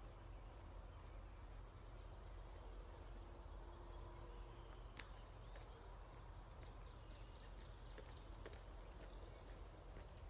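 Near silence: faint outdoor ambience with a steady low rumble. A few faint high chirps and ticks come in the second half.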